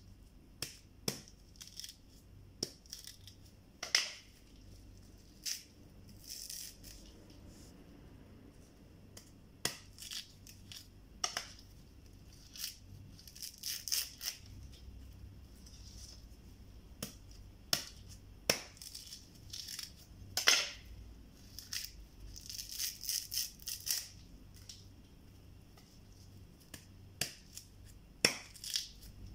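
A kitchen knife chopping into a dry coconut husk in irregular sharp strikes, mixed with hands tearing the fibrous husk away in short bursts of rasping, ripping noise.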